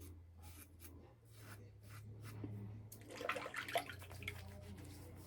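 Strokes of an aluminium safety razor scraping through lather, then water splashing and dripping about three seconds in.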